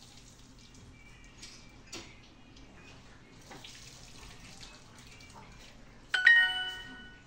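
Duolingo app's correct-answer chime: a sudden bright ding of several ringing tones about six seconds in, fading away over about a second. Before it come a few faint clicks and blips as word tiles are tapped into place.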